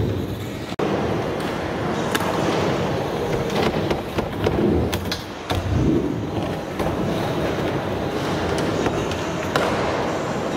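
Skateboard wheels rolling on concrete ramps, with repeated sharp clacks and knocks of boards hitting the ground.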